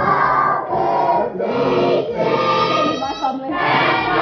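A group of people singing together in phrases about a second long, with crowd noise.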